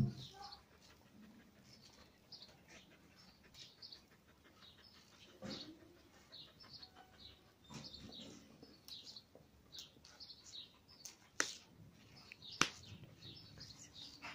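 German Shepherd dog panting softly, quick short breaths a few times a second. Late on, two sharp clicks about a second apart stand out as the loudest sounds.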